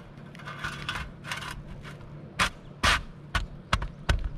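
Asphalt shingles scraping and rustling as a Starlink roof-mount flashing plate is slid in under them and pressed down, followed by several sharp snaps or knocks in the second half.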